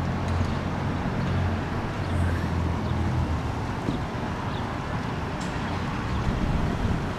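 Wind buffeting the microphone over a steady low engine hum, which fades about three and a half seconds in.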